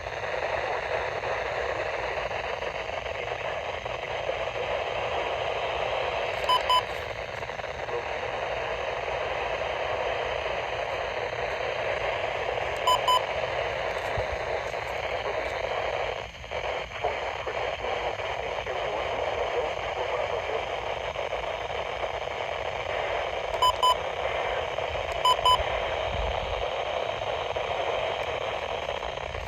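Steady static hiss from a weather radio receiver on a weak, noisy signal. A short double beep cuts through it four times.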